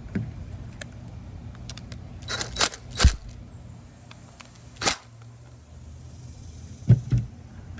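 A few sharp clicks and knocks of small parts and tools being handled while the engine's carburetor is worked on, the loudest about three seconds in and a pair near the end, over a faint steady low hum.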